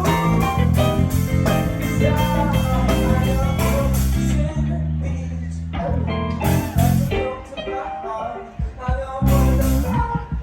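Live band playing a blues-rock song with guitar and bass. The regular beat drops out about four and a half seconds in and returns about two seconds later.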